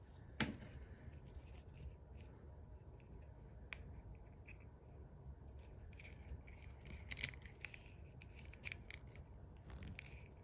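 Faint clicks and rubbing of a plastic action figure's joints and small parts as it is handled and posed, with a soft knock about half a second in.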